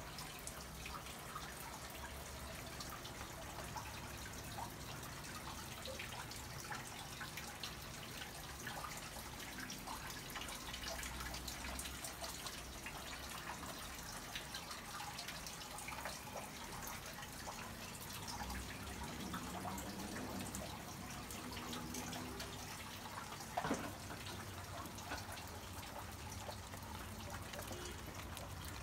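Water dripping and trickling steadily, with many small scattered drips, and one sharp knock late on.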